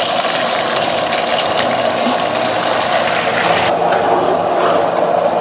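Blended spice paste sizzling in hot oil in a wok as it is poured in and stirred with a metal spatula: a steady frying hiss.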